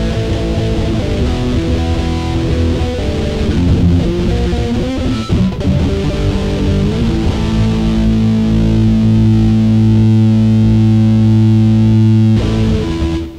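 Amplified electric guitar with some distortion, played as a run of notes and chords, then one chord left ringing steadily for about five seconds before it is cut off near the end.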